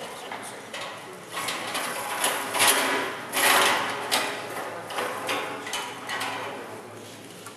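Spectators clapping fast and shouting encouragement to a lifter setting up for a deadlift, swelling about a second and a half in and easing off near the end.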